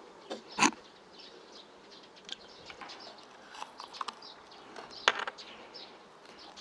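Thick ostrich eggshell being chipped away by hand to widen the hole in its top: small clicks and cracks of shell, with a thump about half a second in and a sharp crack about five seconds in.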